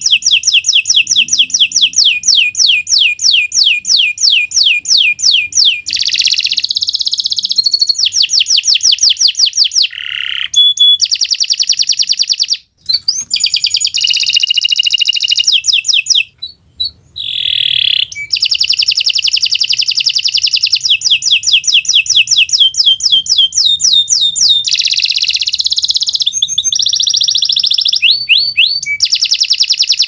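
Canary singing a long, loud song of fast trills made of rapidly repeated falling notes, shifting between different rolls and whistled phrases, with two short pauses near the middle.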